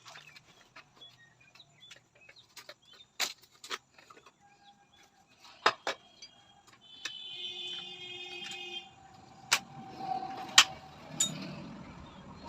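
Hand tools clicking and knocking against the metal parts of a motorcycle rear shock absorber during repair, with a few sharp, loud strikes in the second half.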